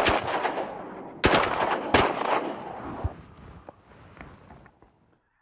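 Three shotgun blasts in quick succession, the first at the start and two more about a second later, each trailing off in echo.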